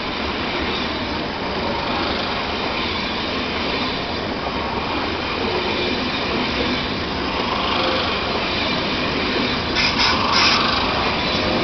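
ÖBB Railjet passenger coaches rolling past as the double-unit train pulls out of the station: a steady rumble of wheels on rail, slowly growing louder as it gathers speed.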